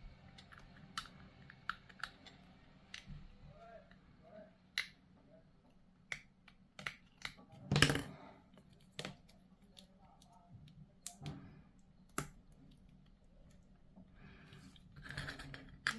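Scattered sharp clicks and taps of push-fit plastic miniature parts being handled and pressed together, the loudest about eight seconds in.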